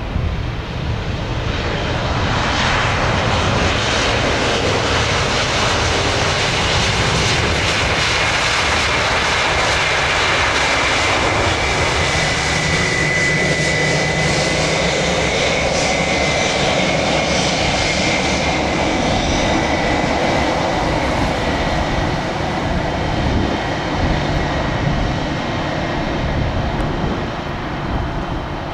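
Airbus A320 twin jet engines running at high power on the runway: a loud, steady rumble and rush with a high fan whine, swelling about a second in and easing slightly near the end.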